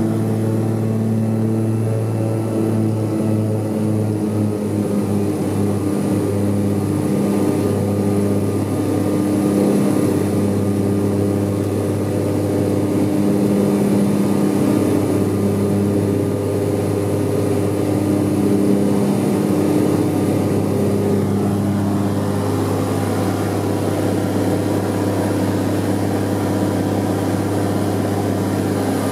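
Grumman G-21A Goose amphibian's twin engines and propellers running at takeoff power during a water takeoff and climb-out, heard from inside the cabin: a loud, steady drone with a slowly wavering tone.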